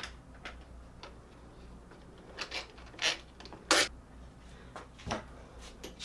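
Metal door-knob hardware being handled and screwed back together: scattered small clicks and scrapes of the knob and screw, with the loudest sharp knock just before four seconds in.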